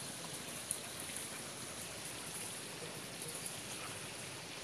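Steady, even outdoor hiss at the pond's edge, with one faint click a little under a second in.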